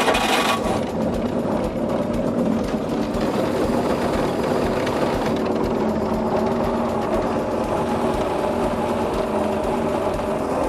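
Boat engine just fired up, a loud burst as it catches right at the start, then running steadily at idle with an even mechanical clatter.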